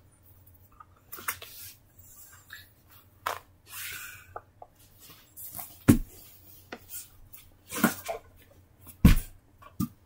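Rustling and soft knocks from plush toys being handled and set down on a rug. Several sharper knocks and thumps come in the second half.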